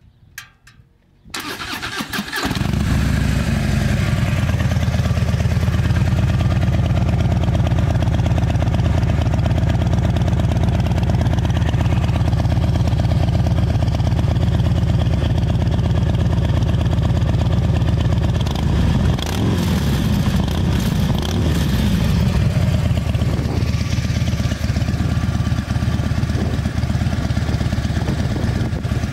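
2014 Harley-Davidson Fat Bob's V-twin engine with Vance & Hines 3-inch slash-cut slip-on exhausts starting about a second in and settling into a loud, steady idle. It is revved briefly a few times about two-thirds of the way through, then drops back to idle.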